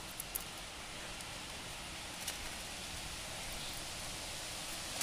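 A few faint, short clicks of an overhead fishing reel's parts being handled and fitted back together, over a steady hiss: two near the start, one a little past two seconds in, and one at the end.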